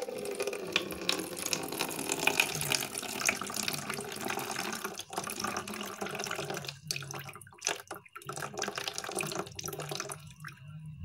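Liquid poured in a thin stream from a plastic container into a plastic jar, splashing and trickling, with a few short breaks in the second half before stopping about ten seconds in. It is the SMB-treated aqua regia solution being decanted off the settled brown gold precipitate.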